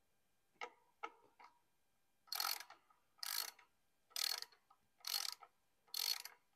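A ratcheting screwdriver driving screws into a motorcycle primary-case cover. Two faint single clicks come first. From a couple of seconds in there is a short burst of ratchet clicks on each back-swing, about one a second.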